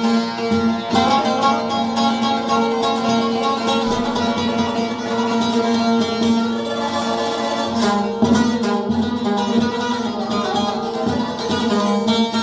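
Music played on plucked string instruments, a quick run of plucked notes over steady held drone notes, in a traditional style.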